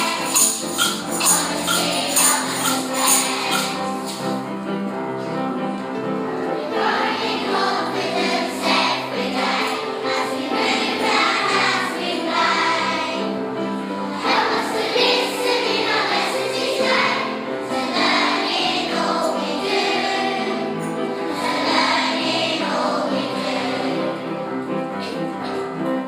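Music with a choir singing, and a tambourine shaking in time during the first few seconds.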